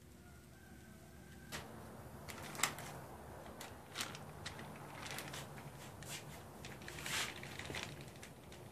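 Metal barbecue tongs clacking and a bag rustling while chicken pieces are handled and laid on a charcoal kettle grill's grate: scattered clicks and rustles with a few sharper clacks, starting about a second and a half in.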